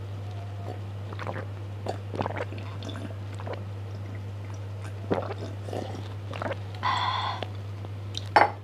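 A person gulping and swallowing a drink from a glass mug, with scattered wet clicks, then a short vocal exhale and a sharp knock near the end, over a steady low hum.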